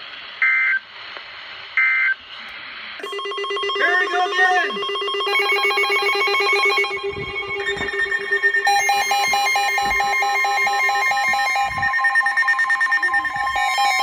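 Two short buzzy SAME digital data bursts from a NOAA weather radio. About three seconds in, several weather radios start alarming at once for a severe thunderstorm warning: a steady alert tone, joined by more steady and pulsing beeping alarm tones that stack up and keep sounding.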